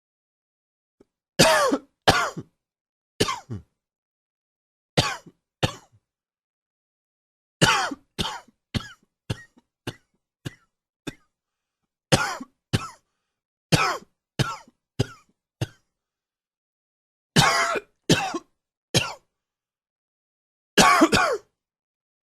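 A man coughing in repeated fits of short, sharp coughs, the longest run about eight coughs in a row, with silence between the fits; the coughing comes from seasonal allergies.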